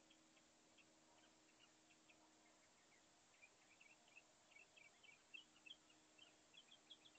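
A northern mockingbird singing faintly: a string of short, high chirping notes that grows busier and louder from about halfway in.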